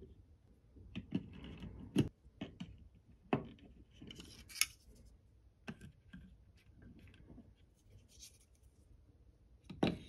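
Folding pocket knives set into the holders of a knife display case: scattered clicks and knocks of the knives against the holders, with a short metallic clinking about four seconds in.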